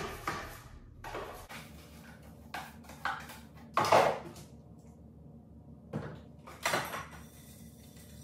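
Dishes being washed by hand in a kitchen sink: a run of short clinks and clatters as plates and cups knock together, the loudest about four seconds in.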